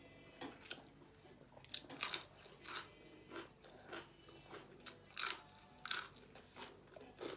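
A person chewing raw green vegetables with the mouth close to the microphone, giving irregular sharp crunches about every half second to a second.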